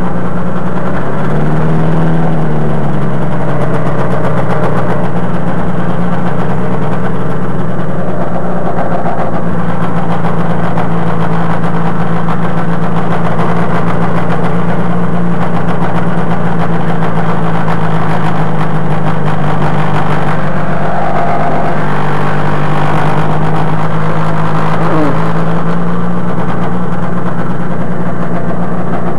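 Rotax 503 two-stroke twin-cylinder engine of an ultralight trike running loud and steady at low power while taxiing. Its pitch dips and picks up again a few times as the throttle is eased and opened.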